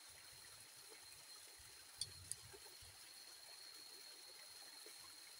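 Faint steady splashing of a small waterfall trickling over rocks into a pool, with two short clicks about two seconds in.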